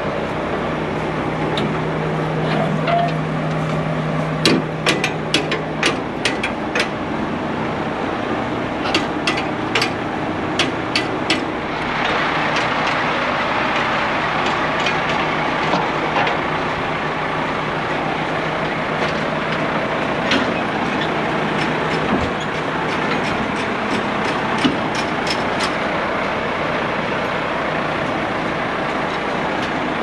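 A large diesel engine, the Case IH 7250 combine's, runs steadily, and its noise grows louder and brighter about twelve seconds in. Over it come several runs of sharp metal clicks and clanks from the MacDon draper header's transport tow bar and hitch pins being worked while the header is switched from transport to field mode.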